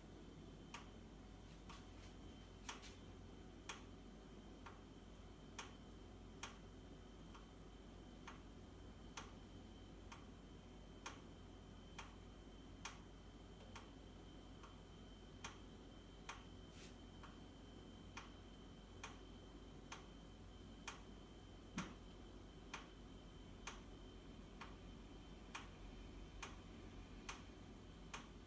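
Baxi boiler knocking: sharp, faint ticks at roughly one a second, unevenly spaced, over a steady low hum and a thin high whine. One knock, about three-quarters of the way through, is louder than the rest.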